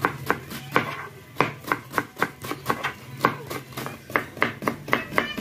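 Kitchen knife slicing shredded cabbage and then a red onion, the blade knocking on a plastic chopping board in quick, regular strokes, about three a second.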